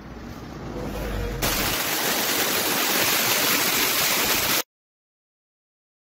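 A steady rushing, hiss-like noise that grows over the first second and a half, jumps up sharply, holds, then cuts off suddenly about four and a half seconds in.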